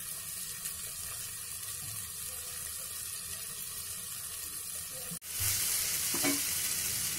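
Sliced onions and green peppers sizzling in a hot nonstick wok while being stirred with a plastic spatula, a steady frying hiss. A little past five seconds in the sound breaks off for an instant and comes back louder.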